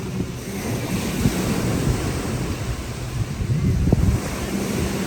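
Wind buffeting the microphone with a steady low rumble, over freshwater lake waves washing in.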